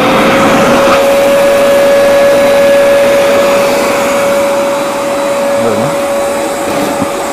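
Wet-and-dry canister vacuum cleaner switching on abruptly and running steadily, a loud rush of air over one constant motor tone.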